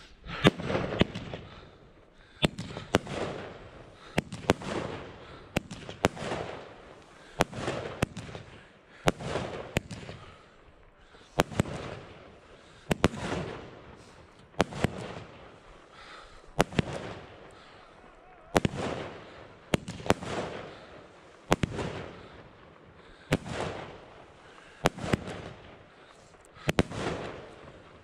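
Argento Blütenstaub 30 mm firework battery firing shot after shot, about one every second and a half to two seconds. Each shot is a sharp crack followed by a hissing, crackling burst that swells and fades.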